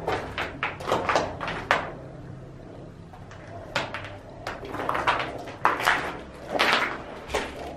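A run of irregular knocks, clatters and short scrapes, a few close together in the first two seconds and a denser cluster from about four seconds in, over a steady low hum.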